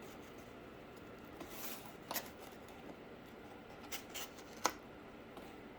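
Faint handling of cardboard: a brief rustle and a few light, scattered clicks, the sharpest about three-quarters of the way through.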